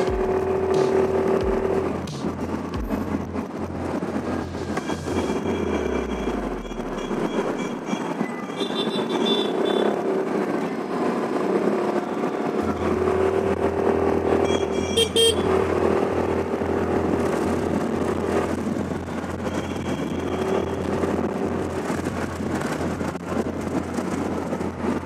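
Road traffic heard while riding: a steady rush of wind and engine noise, with vehicle horns honking several times.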